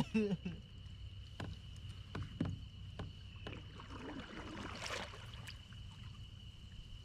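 A few light knocks and rustles on a kayak, such as gear bumping the hull, over a steady high-pitched whine.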